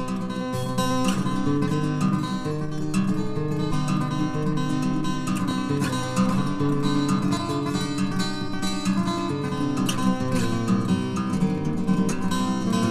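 Background music played on acoustic guitar, strummed and plucked at a lively pace.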